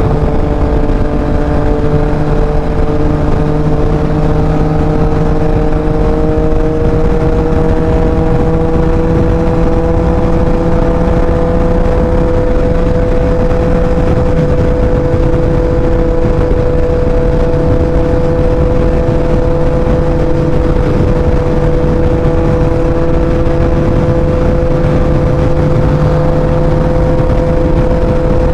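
Yamaha MT-09's inline-three engine running at highway cruising speed, its note climbing slightly over the first several seconds as the bike speeds up, then holding steady, over heavy wind noise.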